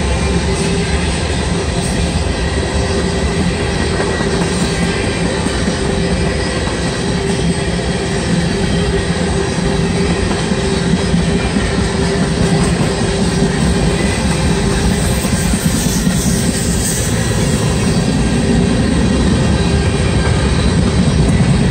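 A freight train of tank cars rolls past at speed: a steady rumble and clatter of steel wheels on the rails. A faint steady whine runs over it.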